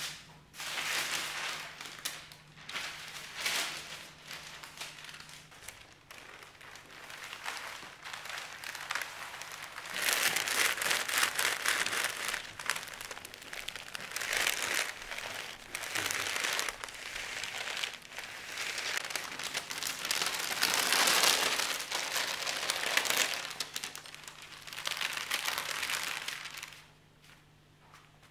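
Baking paper crinkling and rustling as an iron is slid over it and hands smooth and handle it, pressing beeswax into the fabric underneath. The rustling comes in irregular bouts, busiest in the middle stretch, and dies down near the end.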